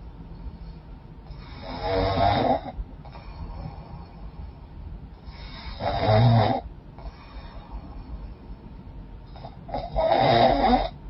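A woman snoring in her sleep, her nose runny and often blocked: three loud snores about four seconds apart, each lasting about a second, with quieter breathing between them.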